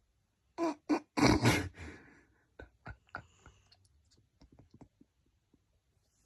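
A sleeping Staffordshire terrier gives a few short snorts and grunts in the first two seconds, then makes a scattered run of faint clicks before going quiet.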